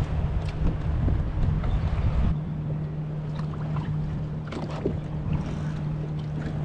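Wind buffeting the microphone over water lapping at a kayak's hull, with a steady low hum throughout and scattered small splashes and clicks. The heavy wind rumble cuts off sharply a little over two seconds in.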